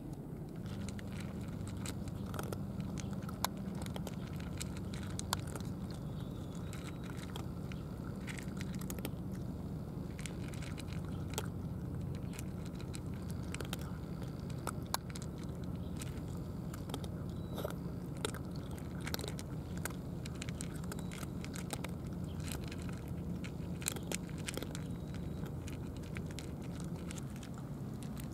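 Cats chewing and crunching dry kibble, with many short irregular crunches over a steady low drone.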